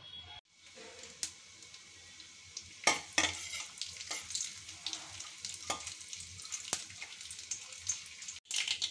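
Mustard seeds, urad dal and asafoetida sizzling in hot oil in a steel kadai, with a steady sizzle and a handful of sharp pops as the mustard seeds start to splutter.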